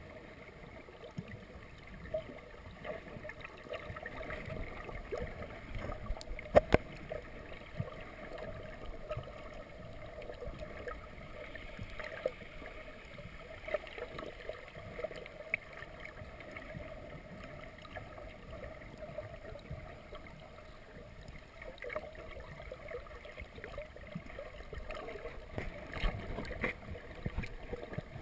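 Underwater ambience heard from below the surface: a steady muffled water noise with scattered small clicks and crackles, and two sharper knocks about six and a half seconds in.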